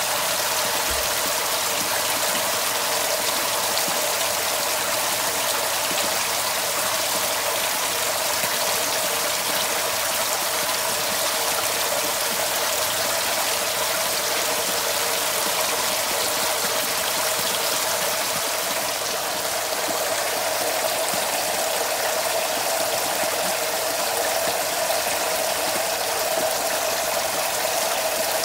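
Water pouring from a pipe into an aquaponics fish tank, a steady splashing stream churning the surface.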